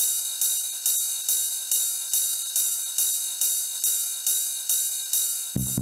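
Background music for a title card: a steady beat of bright, hissy hits about twice a second with no bass. Just before the end, deep bass and drums come in.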